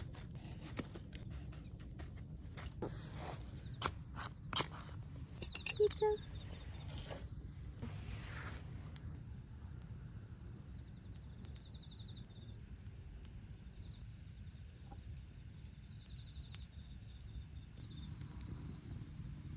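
Campfire crackling, with sharp pops in the first half, over a low steady rumble. An insect sings in the background: a high steady trill that changes about halfway through into a pulsed chirp, repeating evenly.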